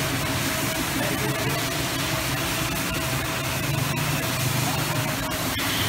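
High-pressure water jet hissing steadily as it sprays a motorcycle's rear wheel, chain area and side panels, over a steady low engine hum.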